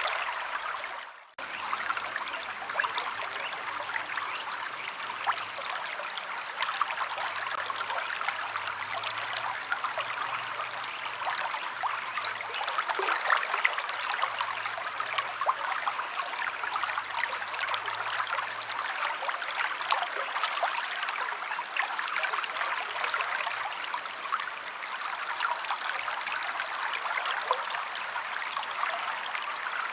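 River water flowing in a steady trickling, splashing rush. The sound drops out abruptly and comes straight back about a second in.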